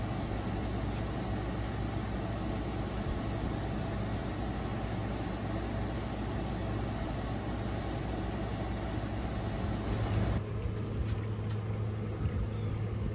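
Air conditioner running: a steady hum with an airy hiss. About ten seconds in the hiss drops away, leaving a low, steady hum.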